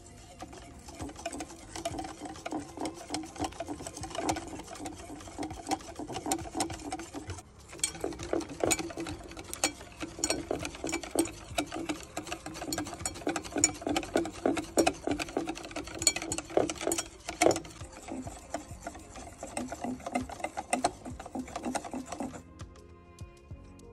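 Wire whisk beating a thick, wet batter in a bowl: fast, rhythmic wet slapping and clicking strokes, with a brief pause about seven seconds in, stopping shortly before the end.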